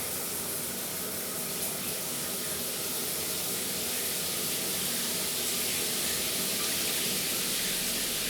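A steady, even hiss that runs without break.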